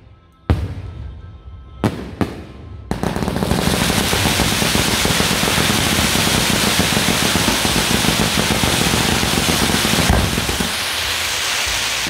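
Fireworks at a procession show: four separate sharp bangs in the first three seconds, then a dense, continuous crackle like a long string of firecrackers going off for about nine seconds, cutting off abruptly near the end.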